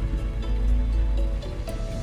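Background music of held, sustained notes over a deep low bass.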